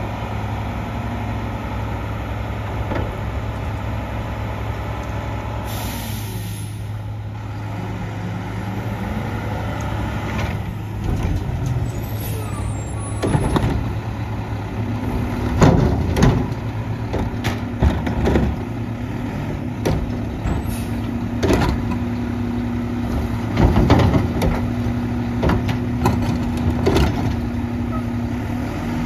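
Mack LEU McNeilus Contender front-loader garbage truck's engine running as it pulls up, with an air-brake hiss about six seconds in. From about ten seconds on, carts clank and bang as the Curotto-Can arm grabs, tips and sets them down, and a steady hydraulic whine sets in about halfway through.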